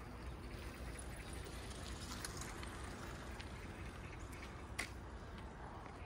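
Quiet outdoor background: a low, steady rumble with a few faint clicks, and one sharper click about five seconds in.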